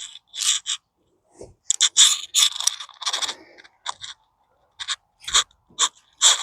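Irregular crunching clicks and scrapes of close handling noise, in uneven clusters with short gaps between them.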